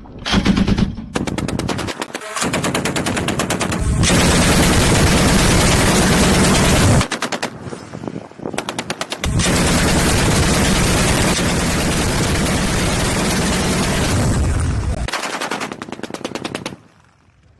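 14.5mm QJG-02 heavy machine gun firing long automatic bursts of rapid, evenly spaced shots. The fire breaks off about seven seconds in, resumes about two seconds later, and stops about sixteen seconds in.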